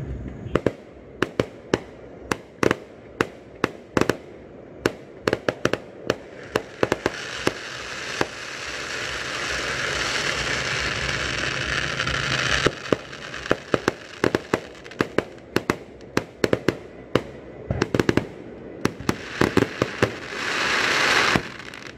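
Fireworks going off in quick succession, a dense run of sharp bangs. A hissing stretch builds under the bangs from about eight seconds in and stops sharply around twelve seconds. Near the end a loud rushing hiss cuts off suddenly.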